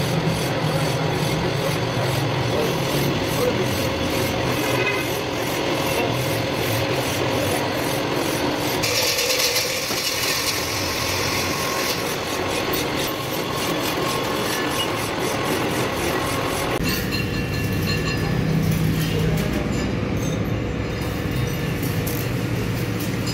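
Continuous rubbing and scraping of tool work on metal, changing character about nine seconds in and again around seventeen seconds, with a hiss lasting about three seconds from the first change.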